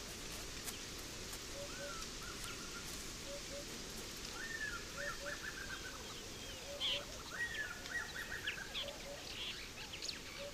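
Several birds calling over a steady natural background. A short low double note repeats about once a second. A higher call rises and then breaks into a quick run of notes, twice. Sharp, thin chirps come in the second half.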